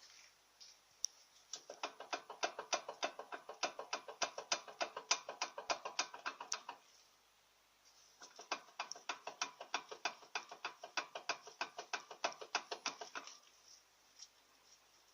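Rapid, evenly spaced metallic clicking, about seven clicks a second, like a ratchet mechanism, in two runs of about five seconds with a pause between.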